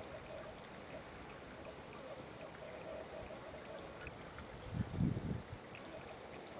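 Steady trickle of water running into a koi pond, with a short low rumble about five seconds in.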